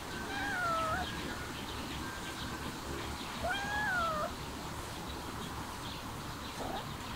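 A cat meowing twice: one short meow at the start that dips and then rises, and a second, slightly longer one about three and a half seconds in that rises and then falls.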